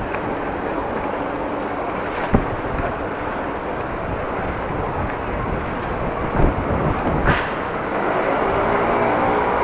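Street traffic noise heard from a slowly moving bicycle. A short high squeak repeats about once a second from around three seconds in, and there are two sharp knocks.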